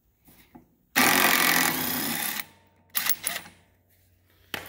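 Impact wrench hammering for about a second and a half as it spins off the 3/4-inch bolt on a mower deck spindle pulley, followed by a few short metallic clicks and a sharp click near the end.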